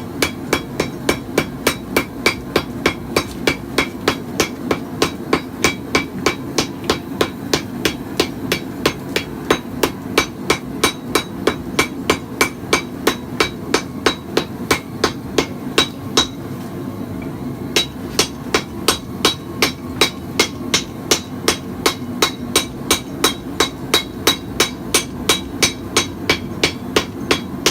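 Hammer striking a hot, freshly fluxed Damascus steel billet on an anvil in rapid, light, even blows, about three a second, setting the forge welds on the first heat and driving the flux out. The hammering stops briefly about two-thirds of the way through, over a steady low hum.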